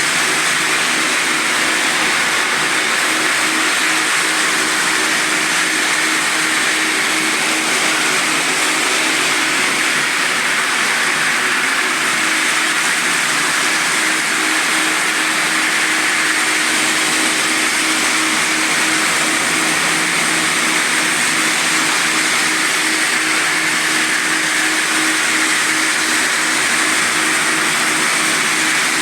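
Quadro floor sanding machine running at 600 rpm with grit-70 diamond sanding discs, rough-sanding old mosaic parquet: a steady, loud drone with a constant hum and a wide hiss, unbroken throughout.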